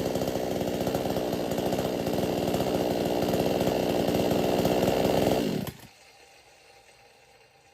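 58 cc two-stroke chainsaw engine running steadily, getting slightly louder, then stopping suddenly about five and a half seconds in.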